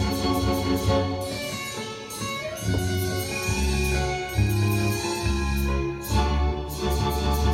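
Instrumental intro of an enka song's backing track, a guitar melody over a steady bass line.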